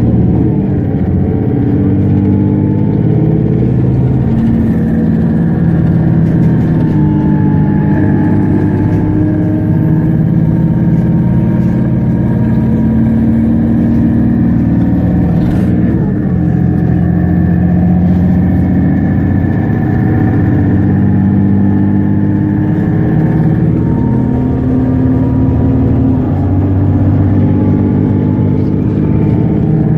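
Mercedes-Benz Citaro G articulated bus driving, its diesel engine running steadily loud with the pitch stepping up and down several times as the ZF Ecomat 6HP 502 C automatic gearbox changes gear. A faint high whine from the drivetrain runs underneath.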